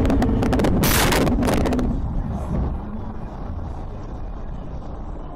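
Car collision on a snowy road heard from a dashcam: a sudden burst of knocks and crunching about a second in, as snow is thrown over the windshield. Then a quieter, muffled low rumble.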